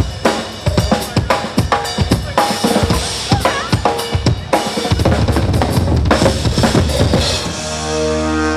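Funk music with a busy drum kit: kick and snare hits packed closely together, then a held chord near the end.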